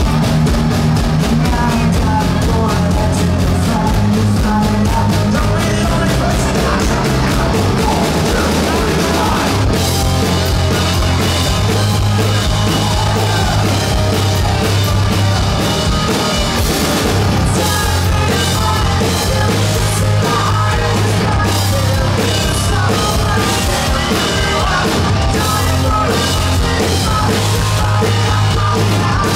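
Rock band playing live at full volume: bass guitar, drum kit and guitars, with sung vocals.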